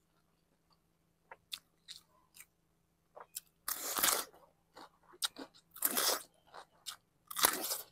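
Crunching bites into a whole bitter gourd, chewed close to the mic: a few small clicks first, then three loud crunches about four, six and seven and a half seconds in, the last the loudest.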